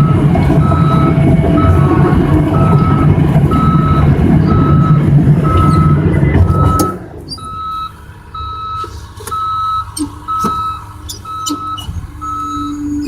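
Bulldozer's backup alarm beeping steadily, about two beeps a second, over the diesel engine running hard. About seven seconds in the engine drops to a much quieter idle while the alarm keeps beeping.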